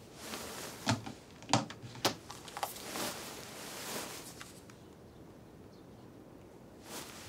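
Bedding rustling as a phone is picked up from a bedside table, with a few soft knocks in the first two seconds, then quiet room tone.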